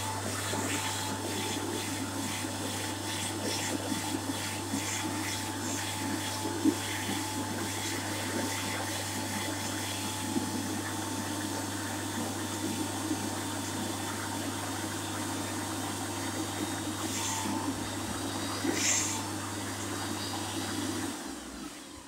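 Hyco push-button electric hand dryer running: a steady rush of air over a low motor hum and a faint steady whine. Near the end it switches off and winds down.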